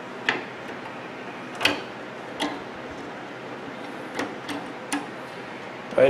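Six sharp clicks and light metallic clacks, spaced unevenly, as pliers work the wire connectors off a microwave oven's high-voltage capacitor. A faint steady background noise runs underneath.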